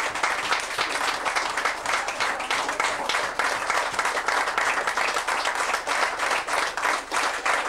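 A small group of listeners applauding steadily, a dense patter of hand claps.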